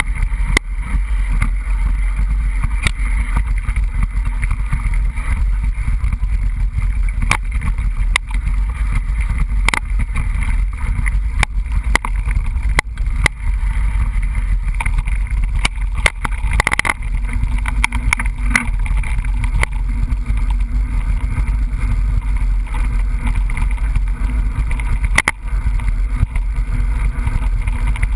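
Mountain bike riding along a trail, heard from a bike-mounted action camera: a steady low wind rumble on the microphone with frequent sharp clicks and rattles from the bike over rough ground.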